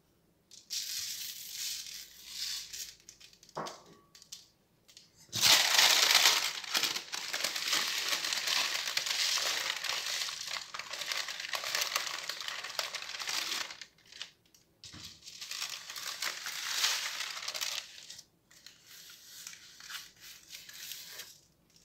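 Baking paper crinkling and rustling as it is folded over a seed-coated rolled sandwich and pressed down. It is light at first, loudest from about five seconds in, and comes in stretches with short pauses.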